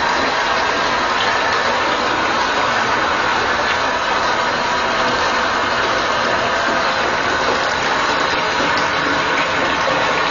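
Running water: a steady, even rush with no breaks.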